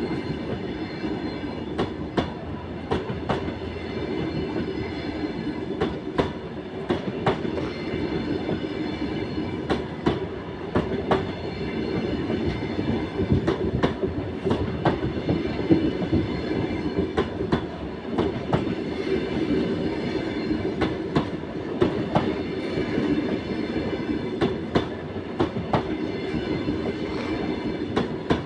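Double-deck passenger train hauled by an EP20 electric locomotive rolling past, with a steady rumble and wheels clicking over rail joints about once or twice a second.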